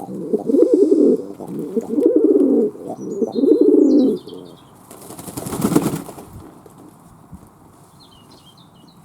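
Fantail doves cooing in low, pulsing calls for about four seconds, followed about five seconds in by a short burst of wings flapping. A few faint high chirps come through at times.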